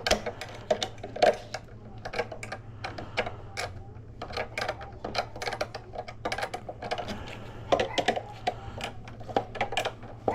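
Hand tools working a wheelchair battery's terminal bolt and nut: many small metal clicks and taps in an irregular quick run, several a second, over a low steady hum.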